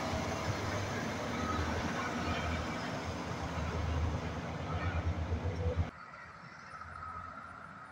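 Tri-axle dump truck's diesel engine pulling away with a low throbbing drone and tyre noise. It cuts off suddenly about six seconds in, leaving faint distant traffic.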